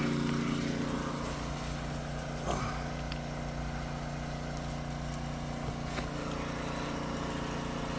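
A steady low mechanical hum made of several even tones, with a faint click about six seconds in.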